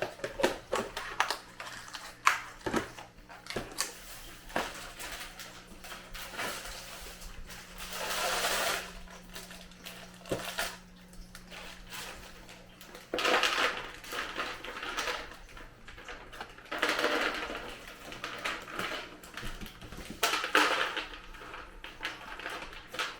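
Candy and its plastic packaging being handled on a tabletop: many small clicks and knocks, with several rustling stretches lasting about a second each.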